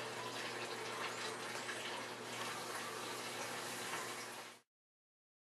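Steady even hiss of outdoor background noise with a few faint thin high calls in it, cutting off abruptly about four and a half seconds in.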